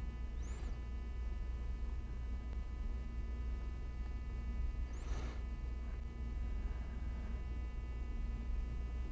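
Steady low electrical hum with faint steady high tones above it, and two faint brief swishes, about half a second and about five seconds in.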